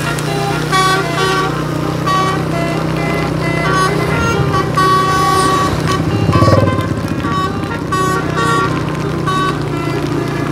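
A bus's multi-tone 'telolet' (basuri) air horn playing a quick tune of short, changing notes over the bus engine's steady hum. About six and a half seconds in there is a brief louder low rumble.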